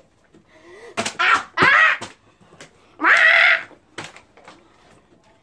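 Boys shouting excitedly, with one long loud yell about three seconds in. A few sharp knocks, the loudest about a second in, are a plastic water bottle landing.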